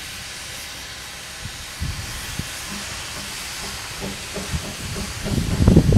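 Narrow-gauge steam locomotive standing and letting off steam: a steady hiss. About five seconds in, a loud low rumbling sets in over it.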